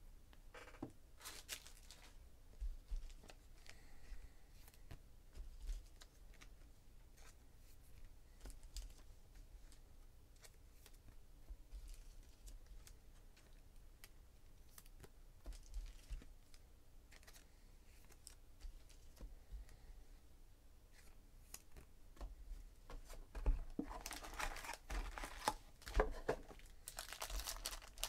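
Foil wrapper of a Panini Contenders trading-card pack being torn open and crinkled near the end. Before that, only faint scattered clicks and rustles of hands handling the card boxes.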